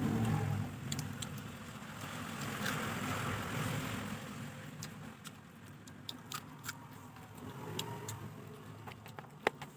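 Eating sounds: chewing and a few sharp clicks, the loudest near the end, over a low rumble that fades after the first few seconds.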